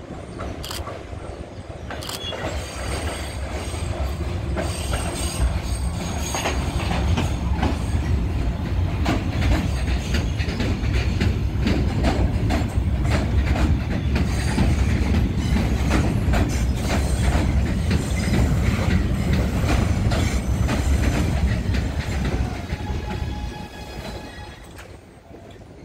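A ten-car Kawasaki R211 subway train running through an elevated station without stopping. It is a rumble that builds over the first few seconds, with rapid clicking of wheels over rail joints, then fades near the end as the last cars pass.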